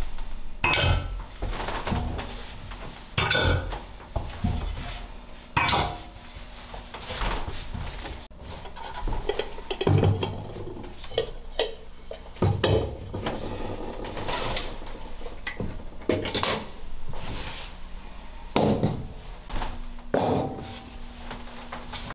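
Kitchenware being handled and set down: a series of separate clinks and knocks of pots, pans and dishes, one every second or two.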